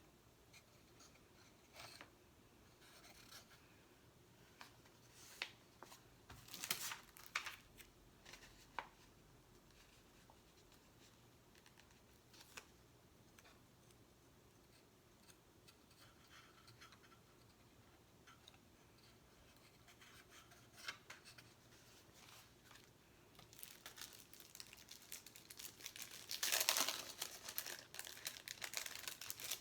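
Stickers being handled, peeled from their backing and pressed onto a box: scattered soft crinkles and taps, then a longer stretch of dense crinkling and tearing near the end, the loudest part.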